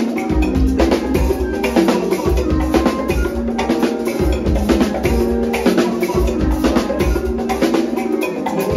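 Live band music driven by a drum kit played hard: a dense run of snare, bass drum and cymbal strokes over sustained keyboard and bass notes, with the deep bass coming in right at the start.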